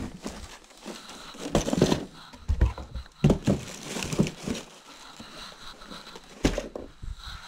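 Cardboard boxes and foam packaging being handled: irregular rustling and scraping with light knocks, and a heavier thump about six and a half seconds in as a box is set down or bumped.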